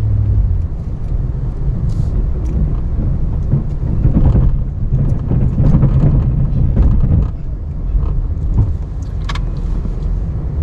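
Ram 1500 Classic pickup's engine running as the truck makes a pass pushing snow with its angled plow blade, growing louder for a few seconds in the middle.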